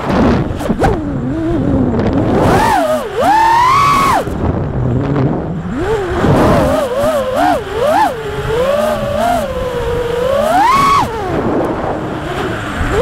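5-inch FPV quadcopter's brushless motors and propellers whining, the pitch sweeping up and down quickly with the throttle through flips and dives, over a rush of air noise.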